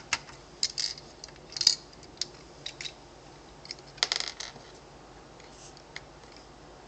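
Lego plastic pieces of a toy fire truck clicking and clattering as it is handled on a tabletop, in scattered small clusters of clicks, the loudest a little under two seconds in.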